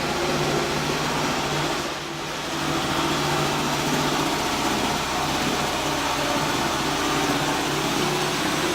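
An engine or motor running steadily, with a brief dip in loudness about two seconds in.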